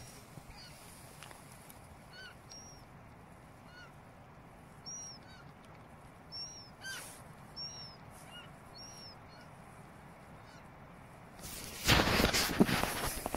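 Eurasian otter giving short, high squeaking chirps over and over, each call briefly rising and falling in pitch. Near the end a loud rushing burst of noise lasts about two seconds.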